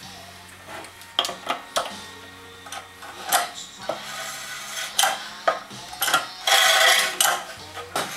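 A small Honda single-cylinder engine being handled and turned on a workbench: scattered metallic clunks and clinks as it is shifted and knocked, with a rattling, scraping stretch of about a second around two-thirds of the way in.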